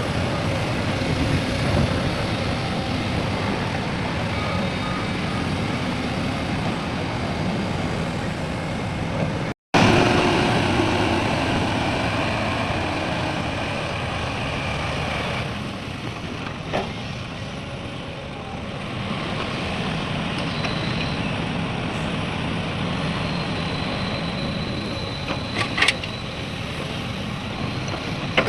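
Heavy construction machinery, an excavator and dump truck, running steadily, with a truck's reversing beeper sounding in the first few seconds. The sound cuts out for a moment about ten seconds in and comes back with a different mix, and a few sharp knocks come near the end.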